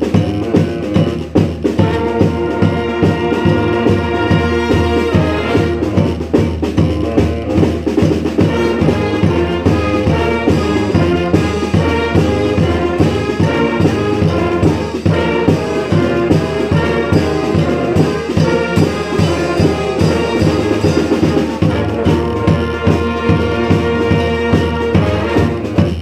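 Street brass band playing a rock tune together: trumpets, trombones, saxophone and sousaphone over a bass drum keeping a steady beat.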